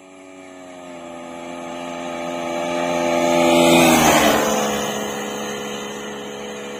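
Bajaj Pulsar NS200 single-cylinder engine at full throttle in a high-speed fly-by: the engine note holds steady and grows louder as the bike approaches, drops in pitch as it passes about four seconds in, then fades as it rides away.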